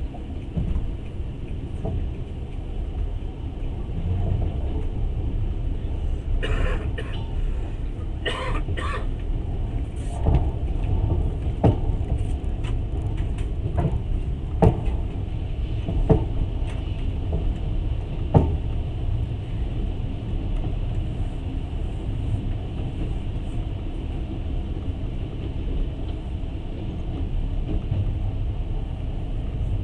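Steady low rumble of a moving passenger train heard from aboard. A few short, harsher noises come about a quarter of the way in, then five or so sharp knocks at irregular intervals.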